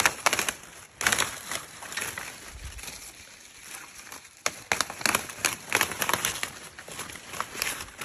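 Cherimoya leaves being stripped off the branches by hand: quick runs of crisp snaps and rustles, coming in bursts with short pauses and a quieter stretch near the middle.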